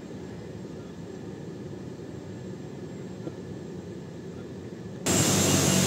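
Steady low rumble of jet aircraft noise on an airport apron. Near the end it cuts suddenly to much louder jet engine noise carrying steady whining tones.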